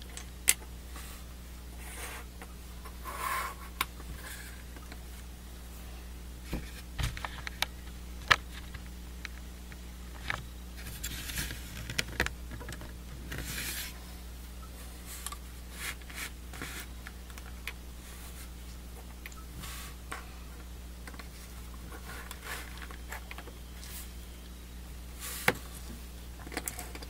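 Small plastic model-kit parts of a Master Grade Gundam being pressed together, handled and set down on a cutting mat: scattered sharp clicks with a few short scraping rustles, the loudest clicks about half a second in, about eight seconds in and near the end.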